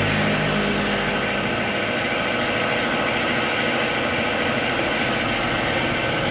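A motor running steadily, with a low hum that fades out about two seconds in.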